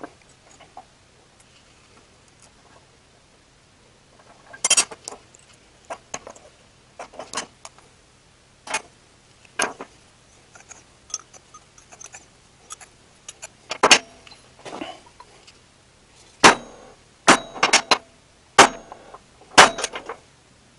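Small steel hand tools (a square, a scribe, a steel rule) and a block of steel bar stock clinking and clacking as they are handled and set down on a steel work surface while the block is marked out. The taps are irregular, about fifteen of them, sparse at first and closer together and louder in the second half.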